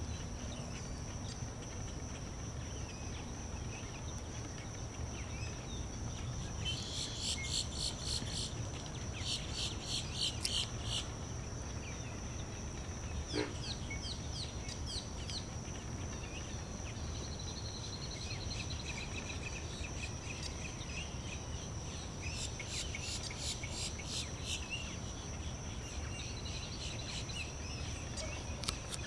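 Outdoor bird-and-insect ambience: a steady high-pitched buzz runs under several bursts of rapid, repeated bird chirping, with a cluster of quick chirps near the middle, over a low rumble.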